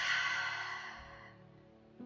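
A woman's long audible cleansing exhale out through the open mouth, a breathy rush that fades away over about a second and a half. Soft instrumental background music plays under it.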